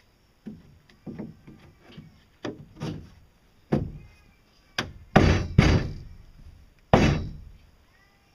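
Stiff woven composite panel handled and knocked against a boat-hull mold frame: a run of irregular knocks and thuds that grow heavier, with the three loudest thuds in the second half.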